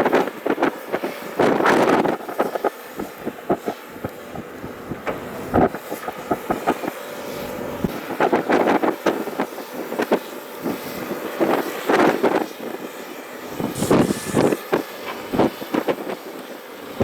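Doosan DX300 excavator working, its engine running under load while the bucket scrapes and handles stones, with several bursts of rattling, clattering rock noise and sharp knocks.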